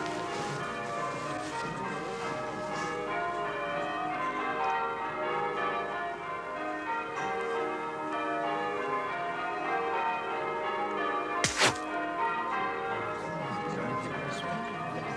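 Church bells pealing, many overlapping ringing tones. A brief sharp noise cuts through about eleven and a half seconds in.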